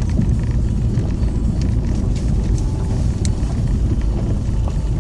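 Car tyres rolling on a steep gravel road, heard from inside the cabin: a steady low rumble with a few sharp ticks.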